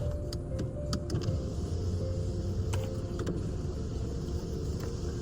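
Steady low rumble of a car interior, with a few sharp light clicks and a faint melody playing underneath.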